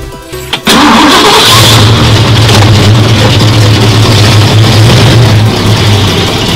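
1966 Ford Mustang's engine starting with a sudden loud burst less than a second in, then running steadily with a deep drone as the car pulls away.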